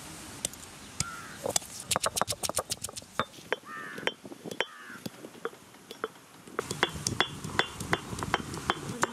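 Stone roller of a traditional ammi kal grinding stone knocking and scraping on its stone slab as fresh ginger and turmeric are crushed and ground. The sound comes as quick runs of sharp stone-on-stone clicks, with a quieter pause in the middle.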